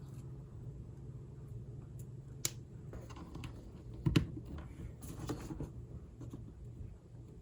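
Scattered sharp clicks from handling a Royal Kludge S98 mechanical keyboard, with one heavier knock about four seconds in, over a low steady hum.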